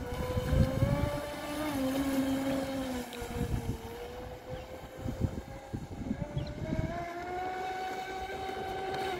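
Electric toy boat's small motor whining steadily, its pitch drifting slowly up and down, over an uneven low rumble.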